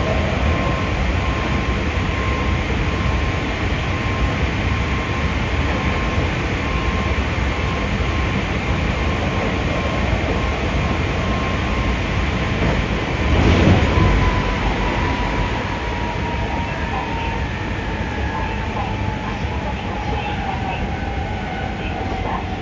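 Hankyu 5300 series electric train running, heard from inside the car: steady rumble of the wheels on the rails with a whine that slowly falls in pitch over the second half. A brief louder rush comes about halfway through.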